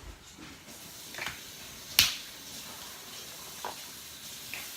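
A few sharp clicks and one loud snap about two seconds in, from seafood shells being cracked during eating.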